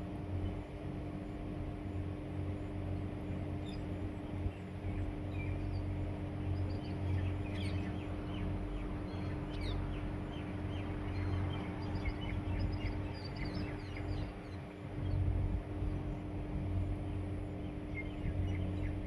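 Sparrows at the nest giving many short, high chirps, thickest from about five seconds in, over a steady low hum.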